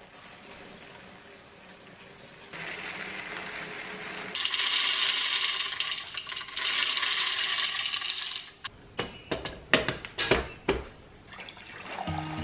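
Water running in a kitchen sink, louder from about four seconds in, then stopping and giving way to a quick run of sharp clinks and knocks of kitchenware.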